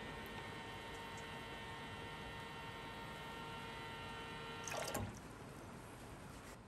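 Small electric water pump humming as water runs from a camper-van sink tap, then cut off about five seconds in with a brief splash as the tap is closed.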